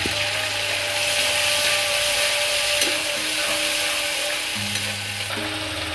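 Ground onion, garlic, ginger and chilli paste sizzling steadily in hot oil in a kadai, stirred with a spatula.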